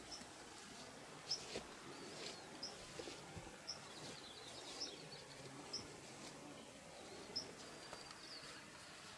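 Faint outdoor ambience with small birds chirping: short high chirps about once a second, a brief twittering trill near the middle, and a few soft clicks.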